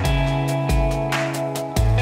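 Background music with a steady beat: a sustained bass line changing note every half second or so, deep kick-drum hits and cymbal ticks.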